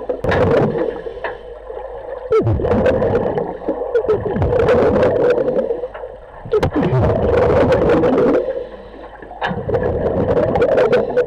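Underwater bubbling and gurgling from a cage diver's regulator breathing, heard through the GoPro's housing: exhaled bubbles come in surges every three to four seconds, with quieter dips between breaths.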